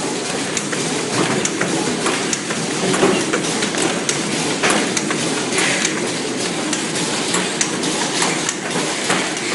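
Automatic cartoning machine running: a steady mechanical clatter with frequent sharp clicks and clacks as its mechanisms cycle and cartons are pushed along the conveyor.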